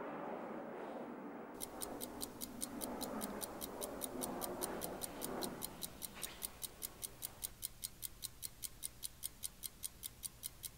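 Clock ticking in a fast, even rhythm of about four or five ticks a second, starting about a second and a half in. Under the first half there is a soft background that fades away.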